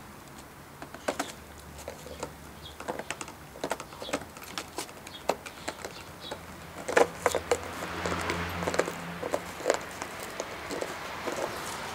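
A plastic drink bottle crackling and clicking irregularly as a Shiba Inu chews at its neck and pins it down with a paw. A low hum swells for a couple of seconds in the middle.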